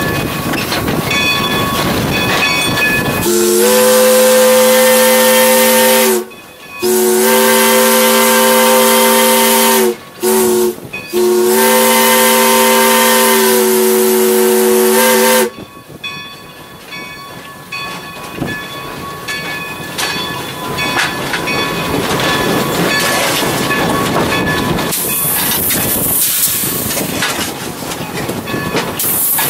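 A steam locomotive's whistle, heard from inside the cab, sounds a chord of several notes in four blasts: long, long, short, long. This is the grade-crossing signal, and the last blast is the longest. Before and after it comes the steam hiss and running noise of the moving locomotive.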